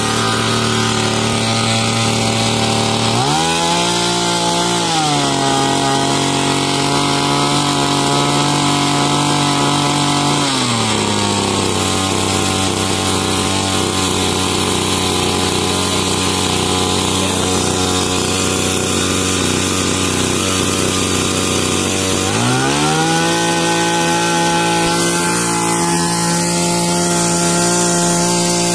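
Agrimate AM-P768 power sprayer's small engine running steadily on a test run. It speeds up about three seconds in, drops back to a lower speed about ten seconds in, and speeds up again about twenty-two seconds in.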